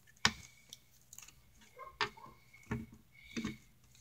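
Pink fluffy slime squished and pressed by hand, giving off sharp clicking pops: about five separate clicks at irregular intervals, the loudest a moment in and three more in the second half.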